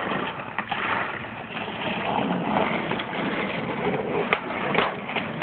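Skateboard wheels rolling on asphalt, a steady rolling noise, with a few clacks of boards and a sharp clack about four seconds in.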